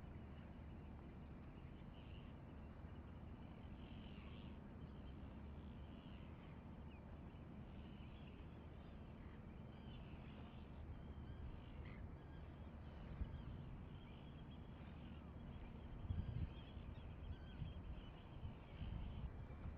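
Faint bird calls, short and scattered, over a steady low rumble, with a few louder low bumps near the end.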